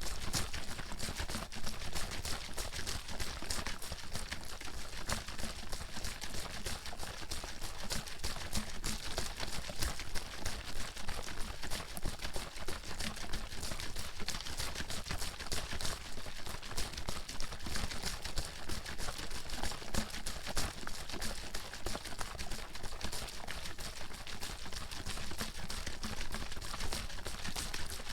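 Water bottle being shaken continuously, the water sloshing and slapping inside it in a fast, steady run of knocks.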